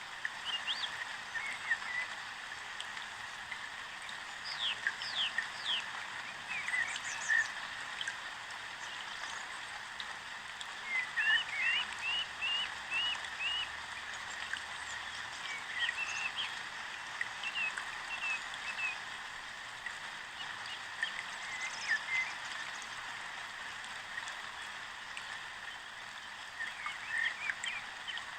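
Short, high chirping animal calls, some in quick runs of several, over a steady hiss like running water or rain.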